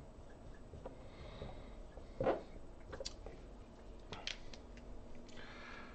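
Faint dry-erase marker strokes on a whiteboard: a few short, separate squeaks and taps as the last characters are written. A soft breath comes near the end.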